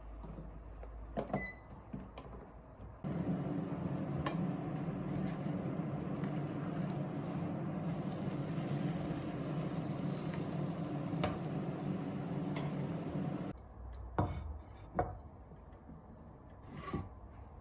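Microwave oven: a short keypad beep, then the oven runs with a steady hum for about ten seconds and cuts off suddenly, followed by a few light clicks and knocks.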